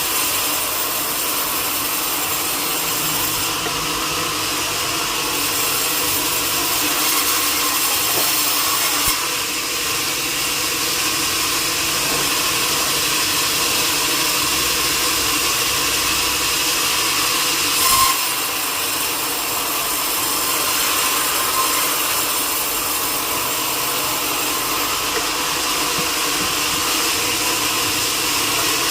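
Sawmill saw cutting through a teak log with a steady cutting noise, and one short sharp knock about two-thirds of the way through.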